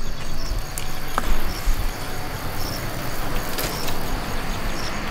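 Road traffic going by on the road nearby: a steady rushing noise with a low rumble.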